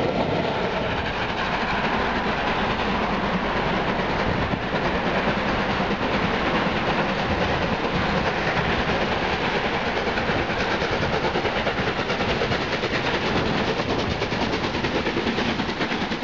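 Passing steam-hauled train: coaches rumbling over the rails, then a double-headed steam train led by LMS Black Five 45407 with Jubilee 5690 approaching hard, its exhaust beats building into a fast rhythm towards the end.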